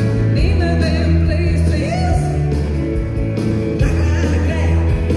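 Live rock band playing loudly, with electric guitar, keyboard and drums, and a woman singing over it; the voice breaks off for about a second in the middle.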